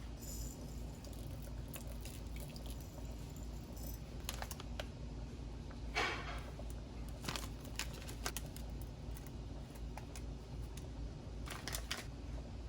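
Scattered light clicks and knocks with a short louder scrape about six seconds in, over a steady low hum: small kitchen handling noises such as utensils and dishes.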